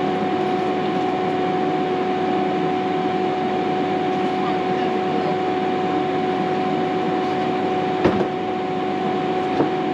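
Tefal Easy Fry & Grill air fryer running: a steady fan whirr with a constant hum, and a sharp click about eight seconds in.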